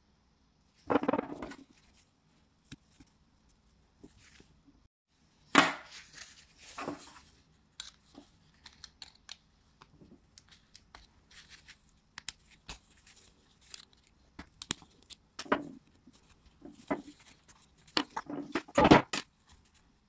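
Gloved hands working on lighter parts: irregular rustling and tearing of cotton wadding, mixed with small clicks and scrapes of a metal pick. The louder bursts come about a second in, around six seconds and near the end.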